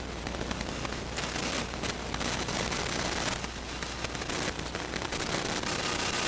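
Radio or TV interference: crackling static hiss with many fine clicks, swelling and fading every second or two, over a low hum that drops away about four and a half seconds in.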